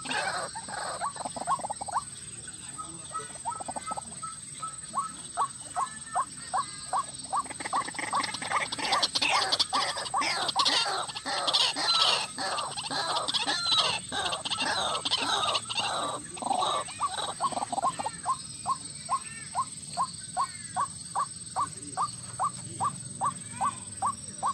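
White-breasted waterhen (ruak-ruak) calling: a steady run of short repeated notes, about two or three a second, with a louder jumble of overlapping, higher calls in the middle.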